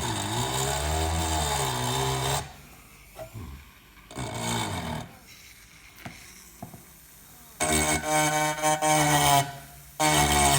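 Small hand-held mini-drill motor fitted with a dental bur, engraving. It runs in spurts with pauses between, and its pitch wavers as the bur bites into the surface.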